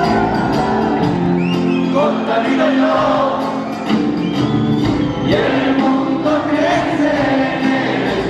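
Live Andean folk-rock band playing: electroacoustic guitar, bass, drums, electric guitar and charango, with singing over it.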